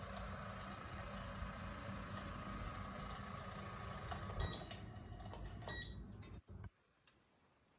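Electric fireplace's fan heater running, a steady whir of blown hot air, which stops about six seconds in. A single sharp click follows about a second later.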